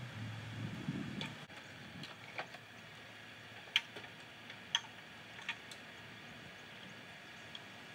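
A few sharp clicks and taps, spaced about a second apart, from a man climbing a stepladder with a tool belt on. A low hum is heard underneath at the start and stops about a second and a half in.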